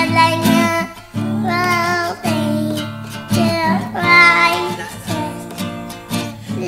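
A young girl singing a song over acoustic guitar accompaniment, in short phrases with brief breaks between them.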